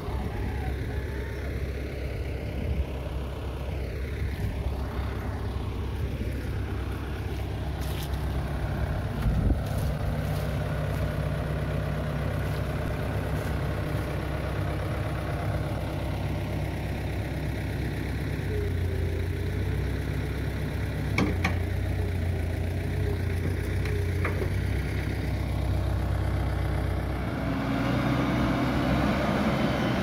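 Komatsu WB140 backhoe loader's diesel engine running steadily as the machine works its loader bucket through soft mud. The engine note strengthens about two-thirds of the way in and again near the end, with a wavering whine for a few seconds and a few short knocks.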